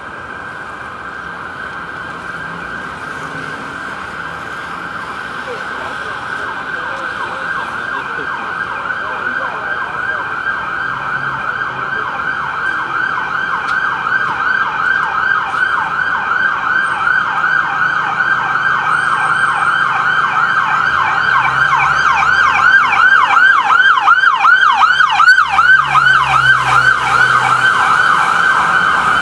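Emergency vehicle siren on a city street, yelping in rapid rising-and-falling sweeps of about three a second and growing steadily louder.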